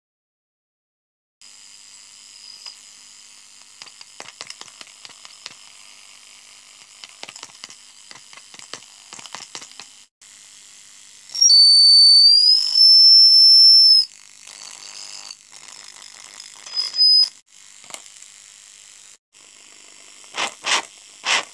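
A homemade microphone amplifier hisses through its speaker, with crackles as the electret microphone and its wires are handled. About twelve seconds in, a loud steady high-pitched feedback squeal from the microphone picking up the speaker lasts about two and a half seconds, with another brief squeal a few seconds later. Near the end come three loud thumps into the microphone.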